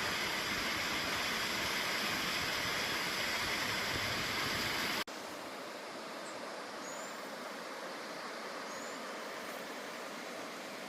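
Steady rush of falling water. After a cut about five seconds in, it gives way to a quieter, thinner steady water hiss with a few faint short high chirps.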